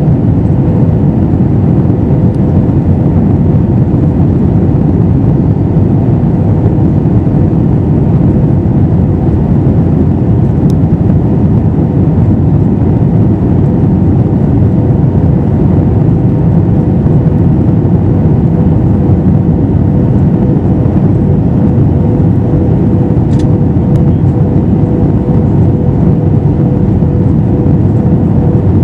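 Steady cabin roar of an Airbus A321-212 in flight, its CFM56 engines and the airflow heard from inside the cabin, with a steady hum held under the roar. A couple of faint clicks come through.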